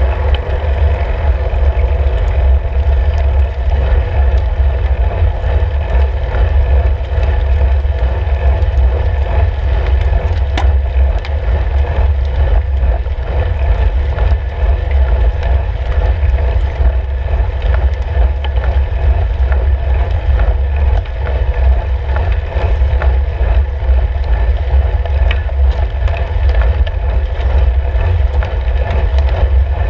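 Steady low rumble of wind and road vibration on the microphone of a camera mounted on a road bike's handlebars while riding.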